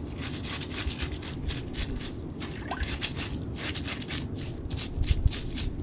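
Stiff green bristle brush scraping the blood out of the opened belly cavity of a gutted Spanish mackerel (sawara), in quick irregular strokes, a few a second, with water trickling and dripping off the fish.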